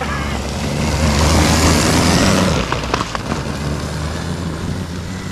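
Electric snow bike passing close by, its rubber track churning the snow in a loud hiss that swells and fades over the first few seconds. A steady low hum runs underneath, with a couple of short clicks about three seconds in.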